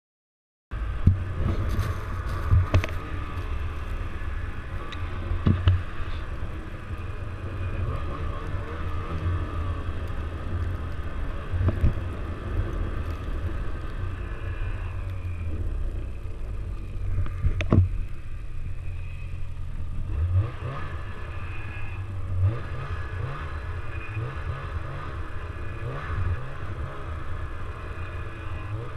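Snowmobile running while riding over snow, a steady low engine and track rumble with a few sharp knocks from bumps. It starts less than a second in.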